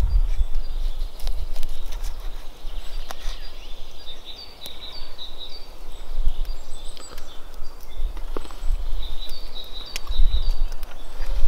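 Small birds chirping in short, repeated high calls over a low, gusting rumble of wind on the microphone, with light clicks of a plastic knife and fork on a wooden cutting board as a sausage is sliced.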